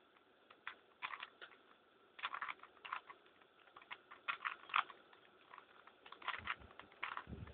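Plastic 3×3 Rubik's cube with its centre caps removed, its layers twisted in quick succession: short bursts of light plastic clicking and clacking every second or so. The moves make up a parity-fixing sequence.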